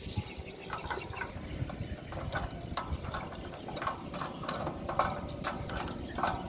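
Ratchet wrench clicking in short, irregular runs while tightening the bolts that hold a remote radio unit (RRU) on its mounting bracket.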